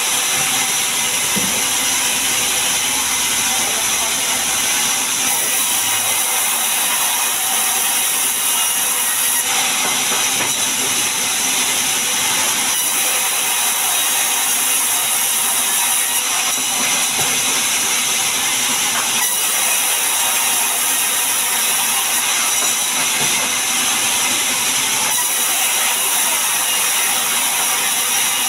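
Large sawmill band saw running and ripping long mahogany planks: a steady, loud, high hiss of blade through wood, shifting in tone every few seconds as the boards are fed through.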